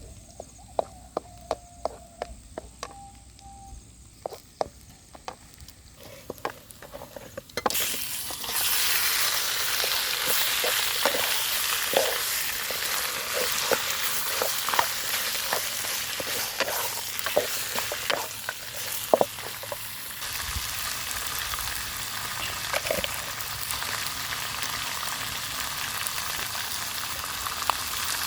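A series of sharp knocks, then food hitting hot oil and sizzling loudly in a pan from about eight seconds in. The sizzle is a steady hiss, with occasional knocks of a utensil stirring.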